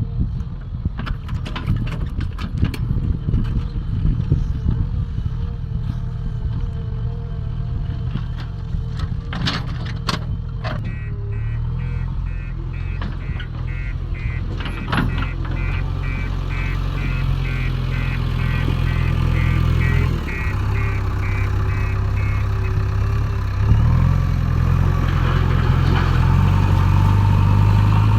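JCB backhoe loader's diesel engine running under hydraulic load, with sharp clanks and knocks in the first ten seconds. A reversing alarm beeps steadily for about ten seconds in the middle. The engine note steps up and grows louder in the last third.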